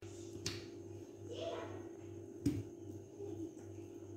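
Pieces of raw mutton rib being laid into an empty aluminium pressure cooker: a small click, a soft wet squish, and a sharp knock against the pot about two and a half seconds in, over a steady low hum.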